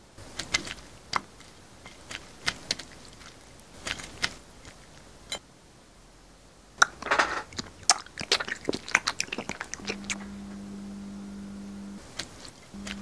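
Close-up mouth sounds of someone biting and chewing raw herring with chopped onion: scattered sharp wet smacks and crunches, then a dense run of chewing and crunching in the middle. A steady low hum comes in near the end and briefly breaks off.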